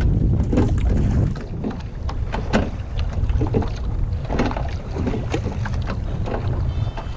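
Wind buffeting the microphone, a heavy low rumble strongest in the first second or so, with scattered short knocks and clicks throughout.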